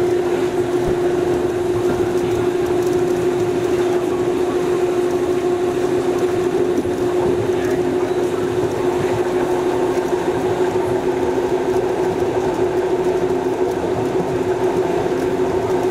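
ALe 801/940 'Fanta' electric railcar running at steady speed, heard from on board: a steady motor hum over continuous wheel and track rumble.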